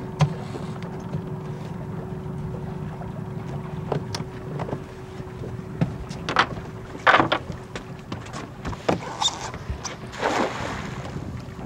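Boat motor idling with a steady low hum, with scattered knocks on the boat, and three short splashes about six, seven and ten seconds in as a cast net is thrown over a school of menhaden and hauled back.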